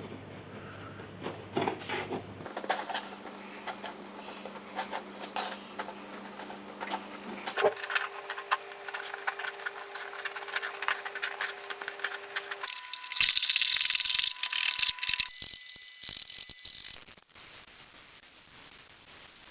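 Diazo whiteprint paper being scraped, torn and sanded off old book pages glued to a canvas: irregular scratching and rasping strokes, with a louder stretch of rasping about two-thirds of the way through.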